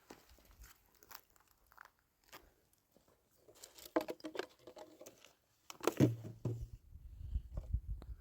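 Rustling and handling sounds: scattered crinkles and light knocks, with a louder knock about six seconds in.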